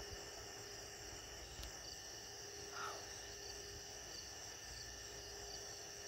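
Faint, steady chorus of night insects chirping, with a brief single call about three seconds in.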